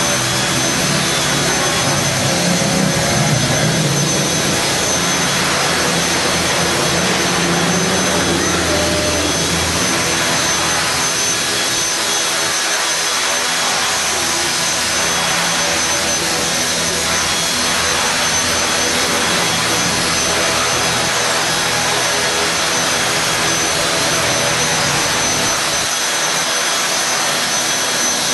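HK450GT Pro 450-size electric RC helicopter flying low: its brushless motor, gears and spinning rotor blades make a steady whirring whine with a constant high-pitched tone.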